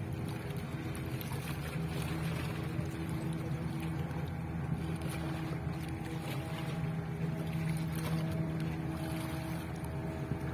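A boat's engine running steadily, a low hum with a constant note, over water and wind noise; a slightly higher note joins it about six seconds in.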